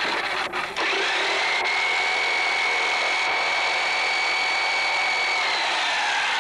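A motor's whine rises to a steady pitch about a second in, holds for about four seconds, then falls away near the end, over a constant noisy hiss.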